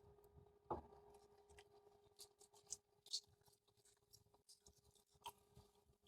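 Near silence: room tone with a faint steady hum and a few faint scattered clicks and rustles.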